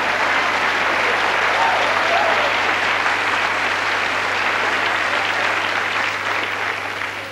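A large theatre audience applauding: dense, even clapping that fades over the last second or so.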